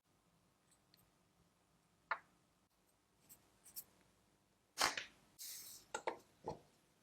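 A few scattered clicks and knocks from hand tools at work, loudest about two-thirds of the way through, with a short scraping noise between them.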